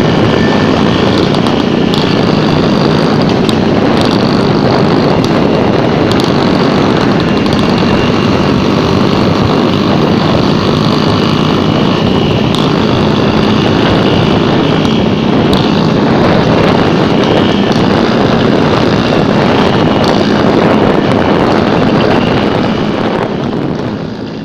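Vespa scooter's two-stroke engine running steadily, fading out near the end.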